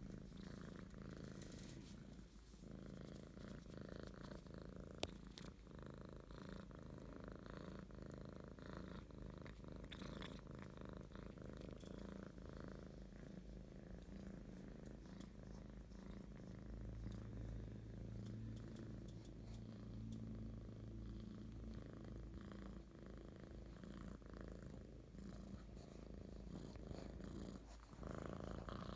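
Calico kitten purring steadily, a close low rumble, while being stroked. A single sharp click about five seconds in.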